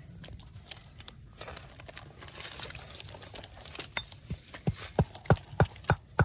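Snail shells clicking and rattling lightly on a wire grill rack as they are set down on it. About four seconds in, a run of regular dull knocks starts, about three a second, growing louder.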